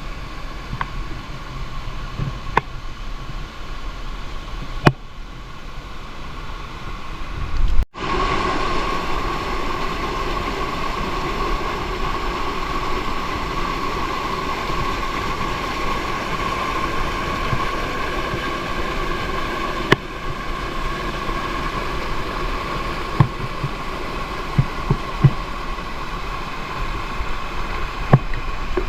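Steady rush of water pouring down a jungle waterfall, with a few faint knocks over it. The sound breaks off abruptly about eight seconds in and resumes slightly louder.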